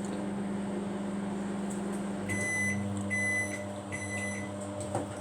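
Microwave oven running with a steady hum, then three long beeps about two seconds in that mark the end of its timed heating cycle. A sharp click comes right at the end.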